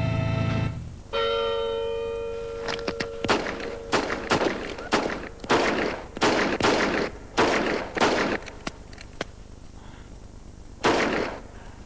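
A held musical chord breaks off and a bell strikes once and rings. Then pistol shots go off in quick succession, a dozen or so over about six seconds, with one last shot near the end.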